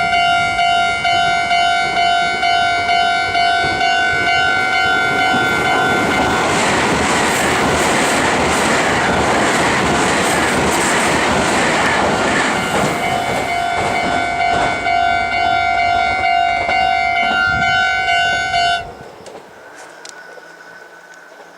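Japanese level-crossing alarm ringing in a steady rhythm while an eight-car Meitetsu 2000 series μSKY electric train passes at speed. The train's wheels on the rails drown out the alarm for about seven seconds from roughly a third of the way in. The alarm then returns and cuts off abruptly a few seconds before the end.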